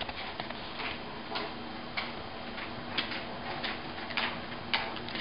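A dog's claws clicking on a hardwood floor as it walks, in irregular sharp clicks a little more than one a second.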